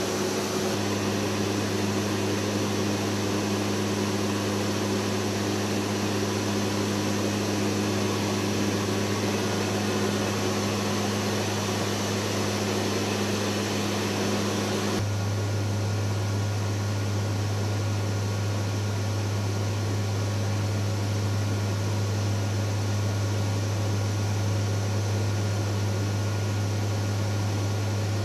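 Steady drone of the WC-130J's four turboprop engines and six-blade propellers in flight, heard from inside the aircraft as a constant low hum with steady higher tones. About halfway through the sound changes abruptly: the higher tones drop away and the low hum grows louder.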